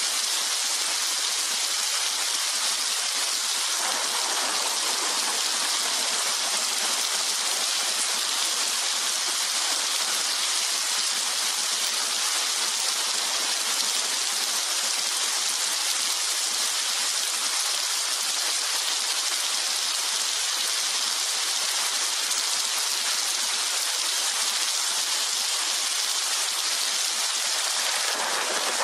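Steady rainfall, an even hiss with no thunder rumble.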